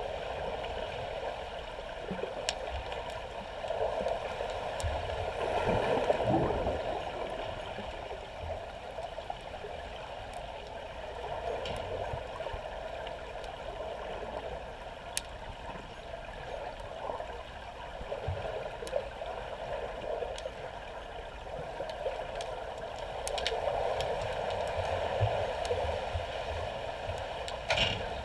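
Pool water heard underwater: a steady muffled rush of churning water and bubbles from swimmers kicking and stroking overhead, swelling about six seconds in and again near the end, with occasional sharp clicks.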